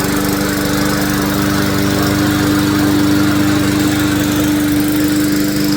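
Lawn mower's small engine running steadily at a constant speed.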